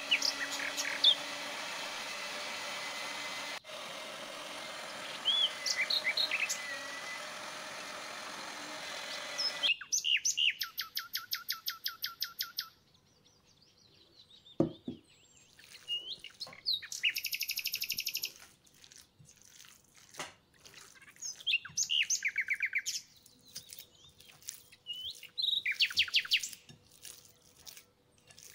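Electric meat grinder's motor running steadily while mincing chicken, with a few bird chirps over it; it stops about ten seconds in. After that, songbirds sing in repeated bursts of rapid trilled notes, with scattered chirps and soft clicks between them.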